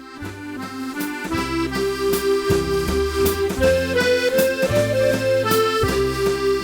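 Solo accordion playing a Scottish waltz tune for country dancing, the melody carried over repeated bass notes and chords. It swells up over the first second and then runs on at full strength.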